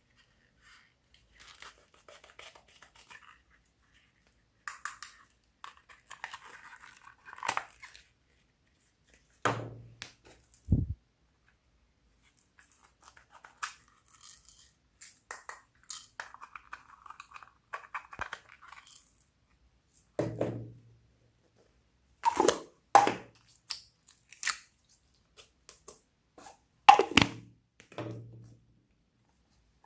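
Slime being worked and mixed by hand: on-and-off sticky crackles and squishes with sharp clicks and pops, a dull thump about a third of the way in, and the loudest snapping clicks in two clusters in the last third.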